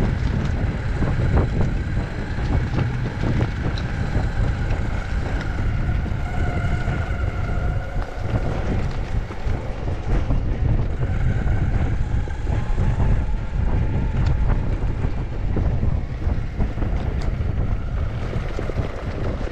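Electric skateboard wheels rolling over a rough dirt track, a dense steady rumble and rattle, with wind buffeting the microphone and a faint whine that wavers in pitch.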